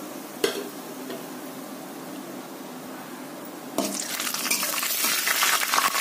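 Diced dry coconut frying in hot oil in a metal kadai, with a single knock about half a second in. About four seconds in, a metal spatula starts stirring and scraping the pan, and the frying turns louder with many quick crackles.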